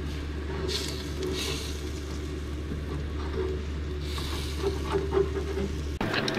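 Eggs frying, bubbling in a wide pan on a propane burner, with hissy spatters about a second in and again about four seconds in, over a steady low hum that cuts off abruptly near the end.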